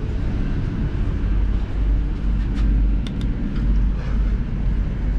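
Class 221 Super Voyager's underfloor diesel engine idling, a steady low rumble heard inside the carriage while the train stands at the platform. A few faint clicks come about three seconds in.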